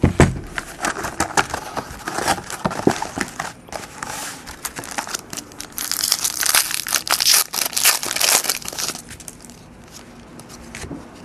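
Plastic wrapper of a trading card pack crinkling and tearing as it is opened by hand, loudest in the middle, with a sharp thump right at the start.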